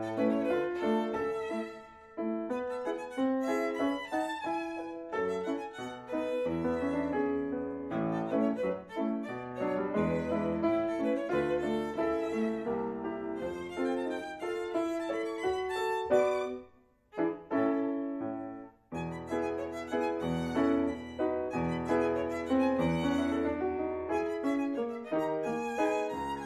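Instrumental music led by a violin playing a lively melody, with two brief breaks about two-thirds of the way through.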